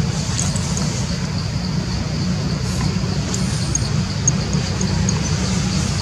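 Steady low rumble of outdoor background noise, with a faint steady high tone and a few faint short high chirps in the second half.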